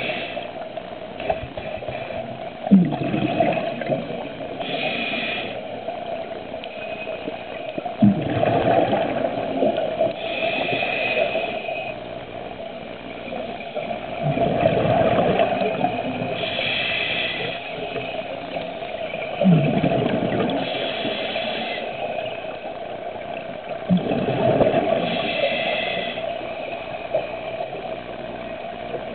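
Scuba diver breathing through a regulator underwater: a short hiss on each inhale alternating with a burst of exhaled bubbles, about every five to six seconds. A steady hum runs underneath.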